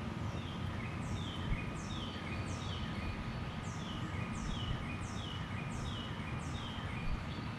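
A bird calling a steady series of high, quickly falling chirps, about one and a half a second, over a steady low rumble.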